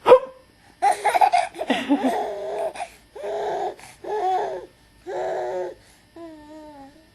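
A single sharp hiccup, then a baby laughing in a string of short bursts, ending in a drawn-out wavering coo.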